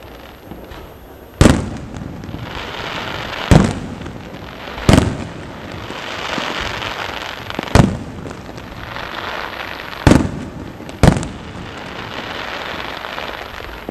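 Aerial firework shells bursting overhead: six sharp booms a second or so apart, with a sustained crackling hiss of burning stars between them.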